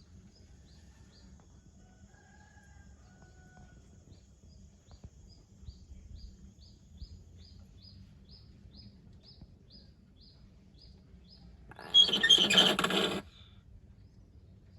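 Faint run of short high bird chirps, about two or three a second, with a couple of soft whistles early on. Near the end comes a loud, harsh burst about a second long.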